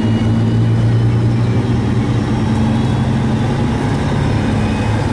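Truck's diesel engine running at a steady cruise, heard from inside the cab: a constant low drone with road noise underneath.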